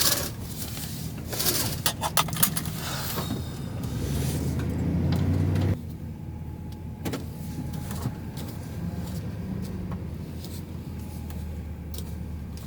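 Van's engine running, a steady low hum, with clattering and rattling in the first few seconds. The engine sound grows louder about four seconds in, then drops back to a steadier hum around six seconds in.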